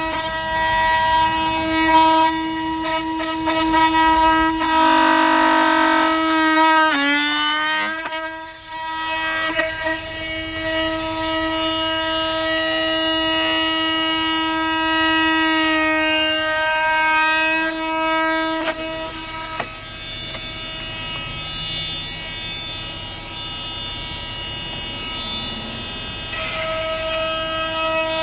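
Oscillating multitool running steadily as its blade cuts a notch in maple stair nosing, a buzzing tone with a high whine over it. The pitch sags briefly about seven seconds in, then recovers.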